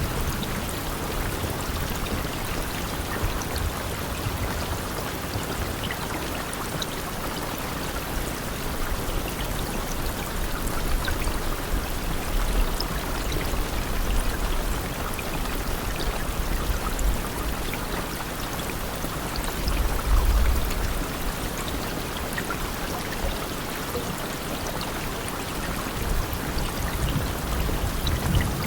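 Steady rain falling, with scattered single drop ticks and a few low surges in level, the loudest about twenty seconds in.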